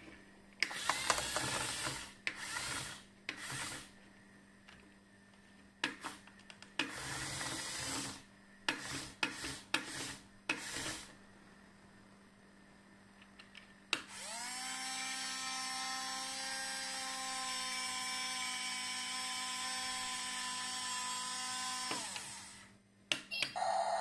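Small electric motors of a 1:24-scale RC bulldozer whirring in a series of short bursts as it is driven on its tracks, then one steady whine that rises briefly in pitch as it starts, holds for about eight seconds and cuts off.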